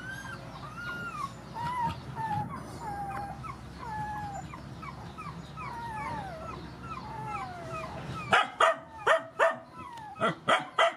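Puppies whining and whimpering in many short, falling cries over a low steady rumble. About eight seconds in the rumble drops away and a quick run of loud, sharp yips begins.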